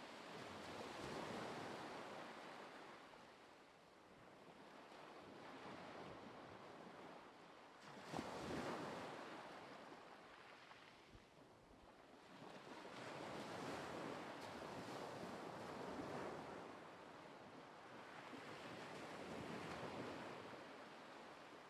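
Faint ocean surf: waves swelling and falling away about every five to six seconds, one breaking more sharply about eight seconds in.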